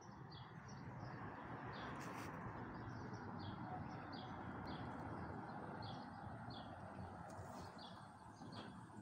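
A bird repeating a short, high chirp about once or twice a second over a steady background hiss.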